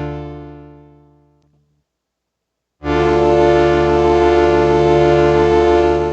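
Yamaha PSR-36 keyboard playing held chords through the Vivlex Time Maker delay pedal on its LoFi setting. A chord fades away over about a second and a half, then after a short silence a new chord starts sharply and is held until it begins to fade near the end.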